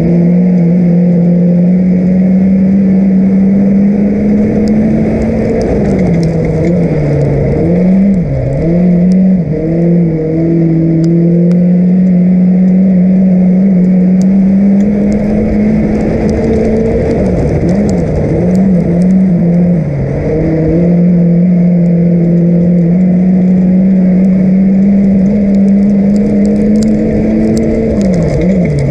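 Production sedan race car's engine heard from inside the cabin, running hard, its pitch climbing slowly on the straights and dropping and wavering as the driver lifts off through the turns, twice, with a third lift starting near the end.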